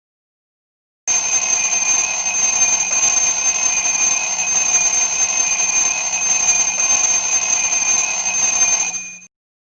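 Cicada calling: a steady, loud, high-pitched buzz with a piercing whistle-like tone. It starts abruptly about a second in and cuts off suddenly near the end.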